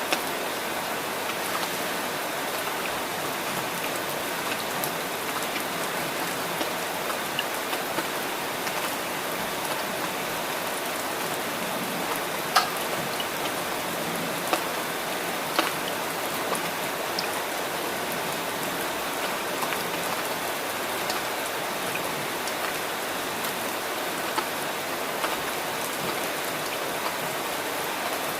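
Steady rain falling, an even hiss dotted with scattered sharper drop taps, one louder tap about twelve seconds in.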